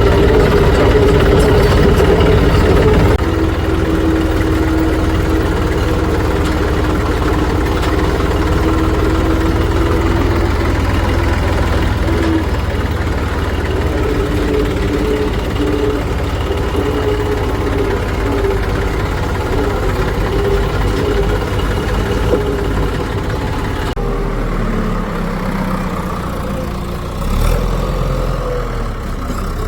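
Heavy diesel engines of earthmoving machinery running steadily. The engine sound shifts abruptly about three seconds in and again a few seconds before the end.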